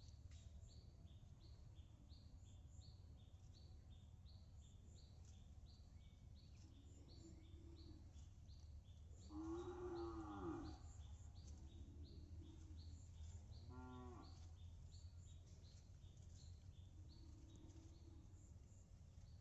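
A cow moos: one long call about halfway through, rising and falling, then a shorter call a few seconds later, over otherwise near-quiet rural background with a faint repeated high chirp.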